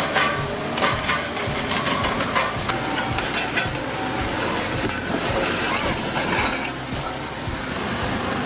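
Heavy machinery demolishing a motorway bridge: a dense, irregular crackle and clatter of breaking and falling debris over engine noise.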